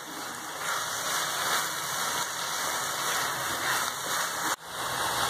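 Grated coconut, milk and sugar mixture sizzling steadily in a nonstick pan over a high gas flame as it is stirred with a silicone spatula, the sugar melting into it. The sizzle breaks off for an instant about four and a half seconds in.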